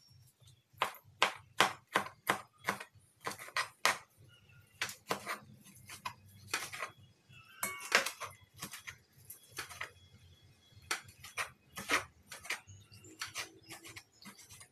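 Kitchen knife chopping parboiled pork belly on a wooden cutting board: a run of sharp knocks, about three a second, with short pauses between runs.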